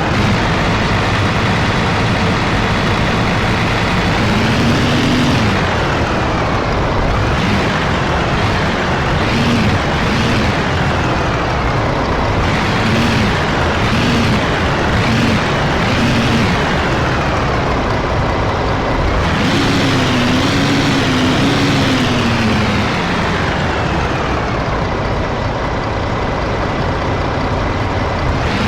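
Mercedes-Benz OM-457 turbocharged inline-six diesel in an O500UA articulated bus running under way. The engine note rises and falls over and over as it accelerates and eases off.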